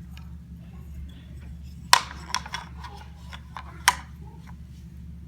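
Jigsaw puzzle pieces being handled and set down, clicking and knocking against each other and the board: two sharp clacks about two seconds apart with a few lighter taps between, over a steady low hum.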